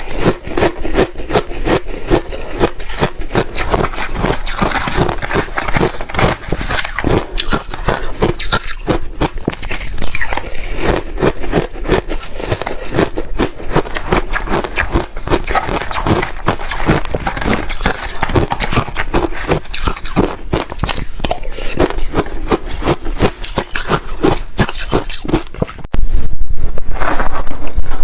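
Close-miked crunching and chewing of ice in the mouth: a rapid, irregular stream of crisp crunches. About two seconds before the end it cuts to a much louder stretch of crunching.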